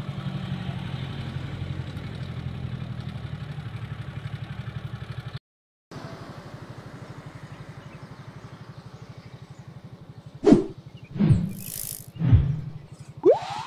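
An engine idling close by, a steady low throb with an even pulse. It drops out for a moment a third of the way in and comes back quieter; near the end come a few loud knocks and a short rising whistle-like sound.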